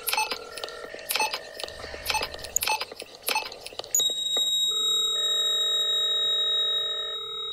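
Electronic soundscape of hospital sounds: quick irregular clicks and ticks over held electronic tones. About four seconds in, a steady high-pitched electronic beep starts suddenly and holds, layered with several sustained lower tones.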